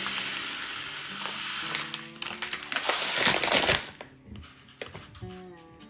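Granulated cane sugar pouring from a bag into a glass jar, a steady hiss that grows louder and then stops about four seconds in. Soft background music plays underneath.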